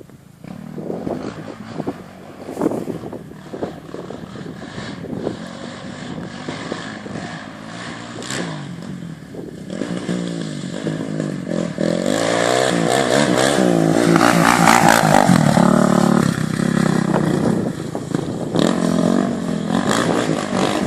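Polaris Predator 500 ATV's single-cylinder four-stroke engine running, with the revs rising about ten seconds in and staying high for a few seconds before easing off a little.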